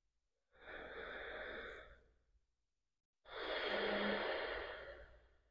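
A woman breathing deeply through the nose: two slow breaths, each lasting about a second and a half to two seconds, the second louder than the first.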